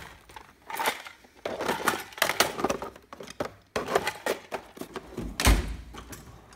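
Plastic tool cases being handled and shifted in a steel tool box drawer: a run of knocks, clatters and rustles, with a heavy thud about five and a half seconds in.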